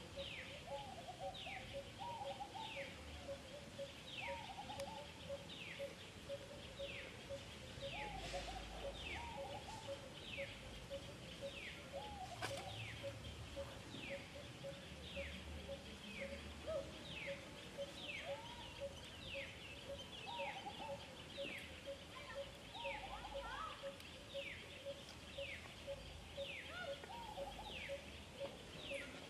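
Outdoor chorus of wild animal calls: a high falling note repeats about once a second, over a steady, fast pulsing note lower down, with scattered short rising calls in between.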